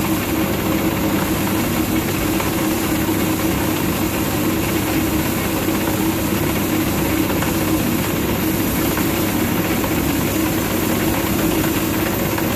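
Old metal lathe with worn-out spindle bearings and gearbox running steadily at slow speed, pretty noisy with a constant mechanical hum and rumble, while an HSS vertical shear tool takes a light finishing cut on hot-rolled steel.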